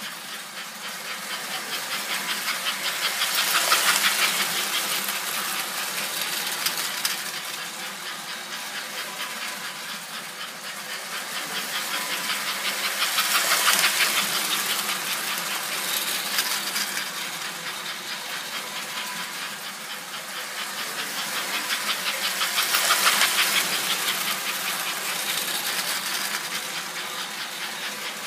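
American Flyer 302 AC toy steam locomotive and its freight cars running on an S-gauge layout: a rapid rattling clatter of motor and wheels on the rails. It swells three times, about every nine to ten seconds, as the train laps the oval past the camera.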